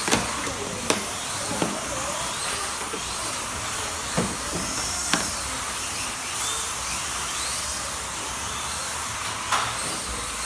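Slot cars running on the track: the steady high whine and hiss of their small electric motors, rising and falling slightly, with a few sharp clicks scattered through.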